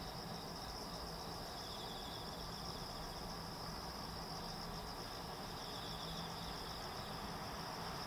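Insects trilling in a steady, high-pitched late-summer chorus. A second, slightly lower trill comes and goes in short spells of about a second.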